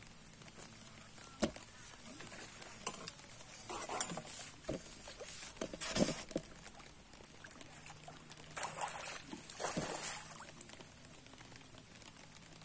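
Small hooked fish splashing at the water surface as it is drawn in beside the boat, in several short bursts with the loudest about six seconds in, mixed with scattered clicks of tackle handling.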